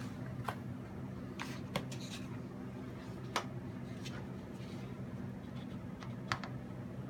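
About half a dozen light, irregular taps and clicks over a steady low hum.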